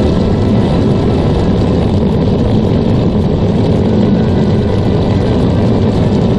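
3D-printed RC tank running over dirt, heard from a camera riding on its chassis: a dense, steady rumble of tracks and drivetrain with a faint steady whine from its 540-size 55-turn brushed motor.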